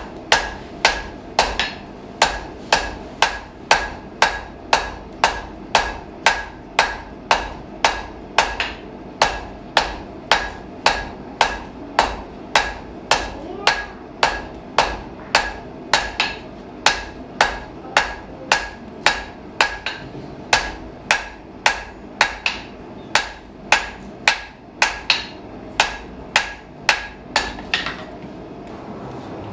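Blacksmith's hand hammer striking hot iron on an anvil: a long run of steady blows, about two a second, each with a short metallic ring, stopping near the end.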